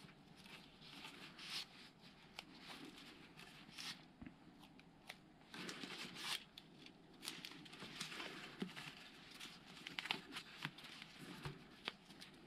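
RTP tennis overgrip being wound around a racket handle, pulled slightly taut: faint rustling and many small scratchy ticks as the tape stretches and rubs under the fingers.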